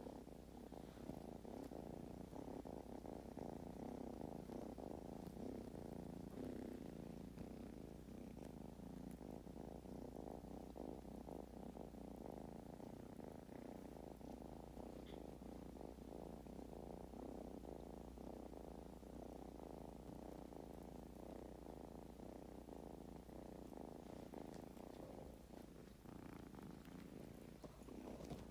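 Kitten purring steadily without a break, a low, faint, continuous purr.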